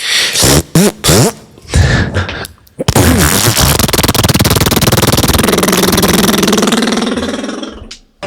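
Beatboxer's mouth sound effects: a few short pops and rising whoops, then a long buzzing lip raspberry, a fart imitation lasting about five seconds that fades out near the end.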